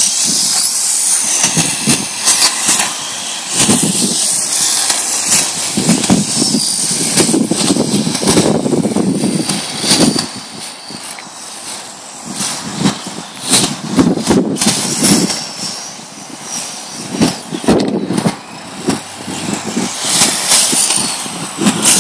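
Radio-controlled drift cars running on pavement: high motor whines rising and falling as they are throttled through the slides, with tyre scrub on the asphalt.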